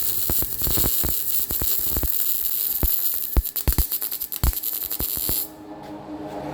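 Welding arc on a muffler's exhaust pipe, a steady hiss with irregular crackles and pops, cutting off about five and a half seconds in.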